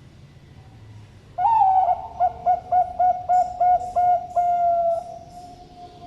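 Zebra dove (perkutut, Bangkok strain) cooing its song: a long opening note, then a quick run of about eight short notes, about four a second, ending in a longer held note that trails off.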